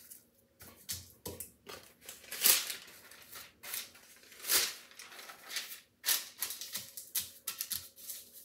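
Parchment paper rustling and crinkling as it is pulled from its box and pressed into metal cake pans: an irregular run of sharp crackles with louder swishes about two and a half and four and a half seconds in.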